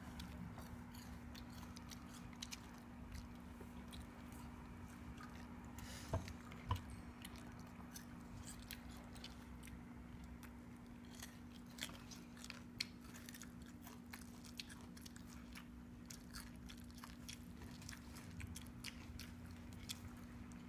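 A drowsy child chewing slowly with food in his open mouth, giving faint, scattered mouth clicks over a steady low hum. Two sharper knocks come about six seconds in.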